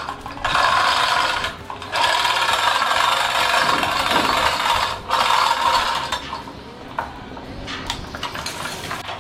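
Manual chain block (chain hoist) being worked by its hand chain: a rattling, ratcheting clatter in long stretches of a second or so with short breaks. It turns quieter, with scattered clicks, from about six seconds in.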